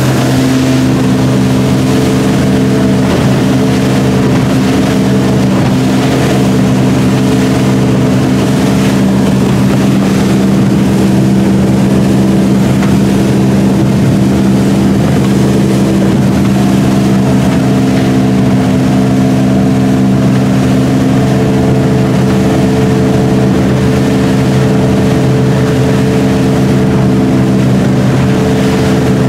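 Volvo Penta 4.3 V6 inboard engine of a Draco 1800 motorboat running steadily under way, heard on board, with wind and water rushing past the hull.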